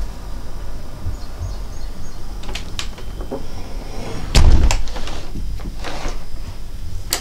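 A window being opened and closed: a few sharp clicks and knocks from the frame and latch, with one loud thump about four and a half seconds in, over a steady low rumble.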